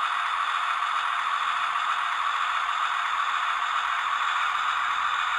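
Fleischmann N gauge diesel multiple unit model's DCC sound decoder playing its diesel engine running sound through the model's small onboard speaker, a steady, thin sound with no deep bass, as the model runs along the track.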